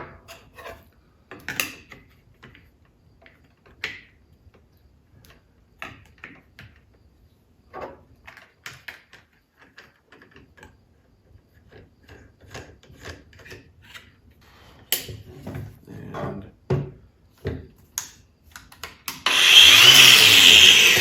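Scattered plastic clicks and knocks from handling the Ryobi 18V ONE+ HP brushless 4-1/2" angle grinder, then near the end the grinder is switched on and its brushless motor spins up, loud, with a rising whine.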